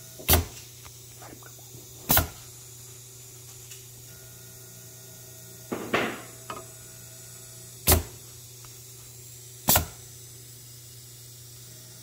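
Pneumatic cylinder of a semi-automatic soap stamper firing in stamp cycles: four sharp air-driven strokes, in two pairs about two seconds apart, over the steady hum of the conveyor belt's motor. A softer clatter of soap blanks sounds about halfway through.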